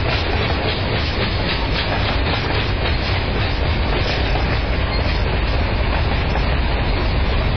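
Freight train tank cars and boxcars rolling past close by: a steady rumble of steel wheels on rail, with clickety-clack as the wheels cross the rail joints, most distinct in the first few seconds.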